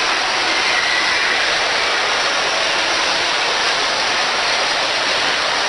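Steady, even background noise of a busy shopping-mall hall: distant crowd hubbub and hall noise with no distinct events.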